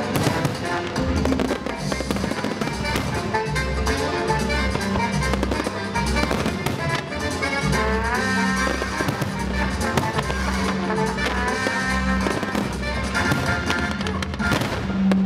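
Aerial fireworks shells bursting in quick, irregular succession, with music playing alongside that has a steady low beat.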